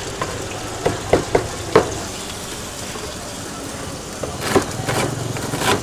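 Mee goreng noodles sizzling in a wok over very high heat, with a spatula striking the wok four times about a second in and louder bursts of sizzle near the end as the noodles are tossed.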